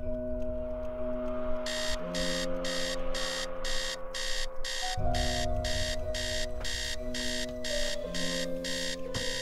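Digital wristwatch alarm going off: fast high electronic beeps in repeated bursts, a little over two a second, starting about a second and a half in. Sustained low notes of film score music run underneath.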